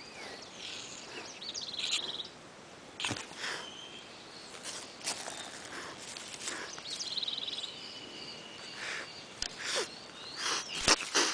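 Young kitten hissing and spitting in a series of short, sharp hisses, the loudest near the end: a defensive threat display.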